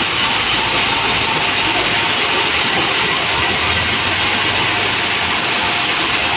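Sawmill saw running through a log, a loud, steady machine-and-cutting noise that holds even throughout.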